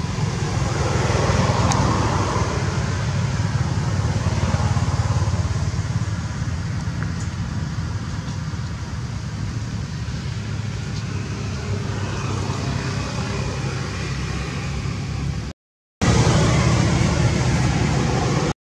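Steady low rumbling noise with a hiss above it, broken by two brief silences near the end.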